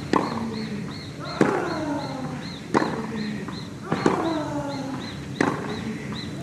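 Tennis rally: racket strikes on the ball about every 1.3 seconds, five in all. Alternate shots carry a player's grunt that falls in pitch.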